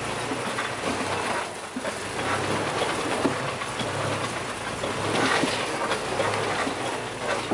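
4x4 vehicle driving over a rough off-road track: a steady low engine hum under constant rattling and knocking of the body and suspension.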